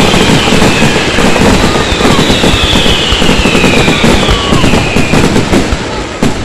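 Fireworks going off in a dense, continuous barrage of bursts and crackle, with several whistles falling in pitch. The barrage thins near the end into separate sharp cracks.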